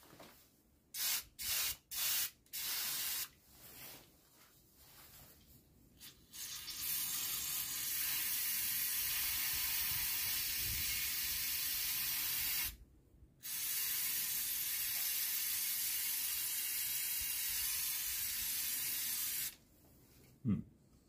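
Aerosol spray can of cleaner sprayed onto a diesel engine. A few short squirts come first, then two long continuous sprays with a brief break between them, and a short knock near the end.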